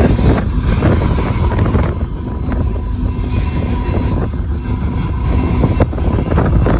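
Refrigerated boxcars of a freight train rolling through a grade crossing: a steady low rumble of steel wheels on rail, with frequent irregular clacks as the wheels pass over the rail joints and crossing.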